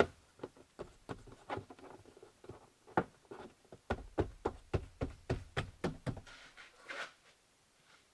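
A rubber door molding being pressed and knocked back into place by hand: a sharp knock at the start, then a run of short knocks that quicken to about three or four a second in the middle, and a soft rustle near the end.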